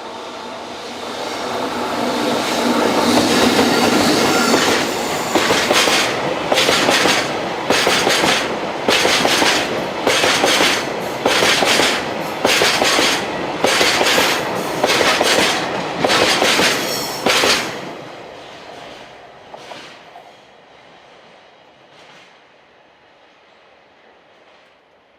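A freight train passing close by: its running noise builds up, then the wheels clack over the rail joints in a steady rhythm for about twelve seconds, and the sound fades away once the last wagons have gone by.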